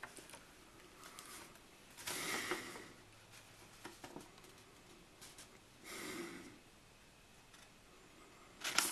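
Quiet room with two soft breaths a few seconds apart and a few faint clicks, the last of them as speech picks up again.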